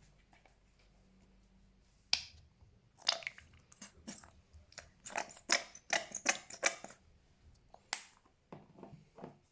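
Fluffy green slime being pressed and squeezed by hand, giving an irregular run of sharp pops and crackles as trapped air bursts. The pops start about two seconds in, come thickest in the middle, and thin out near the end.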